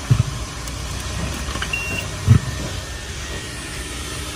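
Self-serve car wash coin box giving one short electronic beep as quarters are credited, over a steady background rumble, with two dull thumps, one near the start and a louder one a little past two seconds in.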